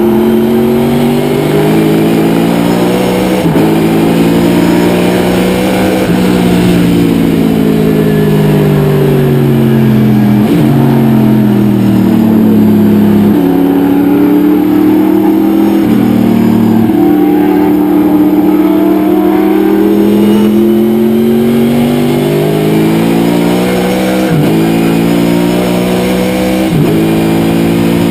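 Corvette C6 sports sedan race car's V8 engine at full racing load: the note climbs through the revs and drops sharply at each of several gear changes, with longer falling stretches as the car slows for corners.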